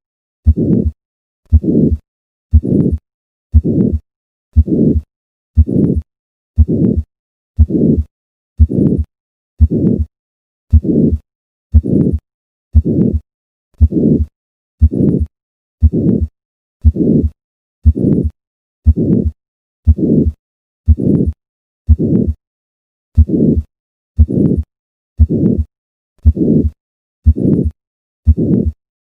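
Heart of a patient with hypertrophic cardiomyopathy heard at the fourth left intercostal space, beating steadily at about one beat a second. Each beat is a heart sound followed by a short systolic murmur, the sign of the thickened heart muscle obstructing outflow.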